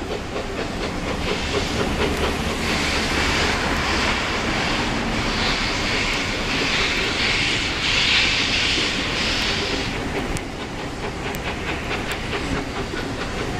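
Steam locomotive working a passenger train, its exhaust and steam hiss growing louder about two seconds in and easing off about ten seconds in, over the running noise of the coaches on the rails.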